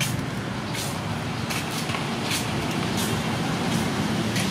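Steady low rumble of a motor vehicle engine running nearby, with several short hissing noises over it.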